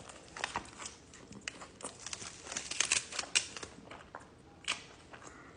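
Close-up eating sounds of a person chewing a grilled burrito: irregular sharp wet mouth clicks and crackles, with a few louder ones about three seconds in.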